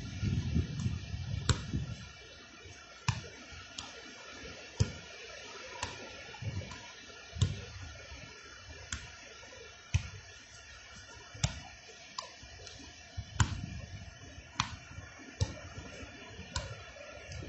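Sharp clicks at irregular intervals, roughly one a second, with a few low thumps near the start and end.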